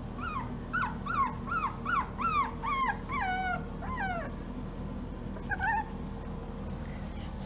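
German shorthaired pointer puppy whining: a quick run of about ten short, high whines over the first four seconds, each falling in pitch, then one more brief whine a couple of seconds later.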